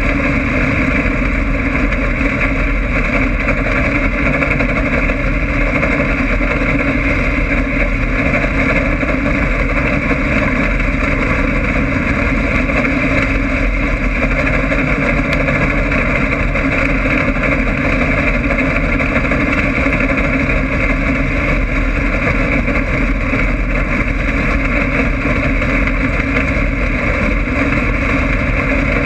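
Stock car's engine running hard and steadily on a dirt oval, heard from inside the car, loud and unbroken, with wind and tyre noise mixed in.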